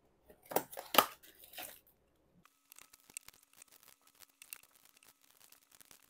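Scissors snipping through the sealed tops of foil trading-card booster packs, a few sharp cuts in the first two seconds, then faint crinkling of the opened foil packs being handled.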